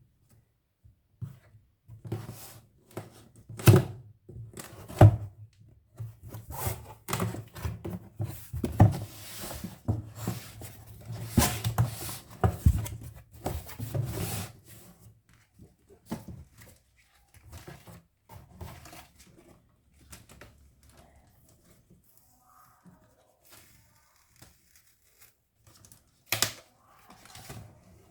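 Cardboard box and packaging being handled and opened: rustling, tearing and repeated knocks and thunks, busiest over the first half, with one sharp knock near the end.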